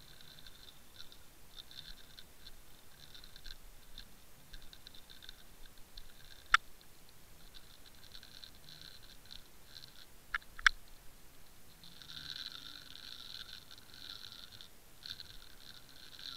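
Scratchy, rustling noise from an underwater camera and fishing rig being dragged along the seabed, coming and going in patches and growing steadier near the end. A sharp click about six and a half seconds in, and two more close together around ten and a half seconds.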